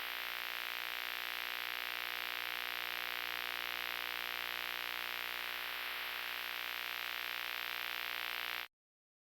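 Steady static-like hiss, unchanging, that cuts off abruptly near the end.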